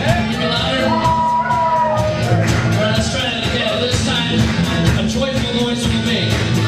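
Live Christian rock band playing a song: a drum kit keeping a steady beat under acoustic and electric guitars, with a voice singing long held notes.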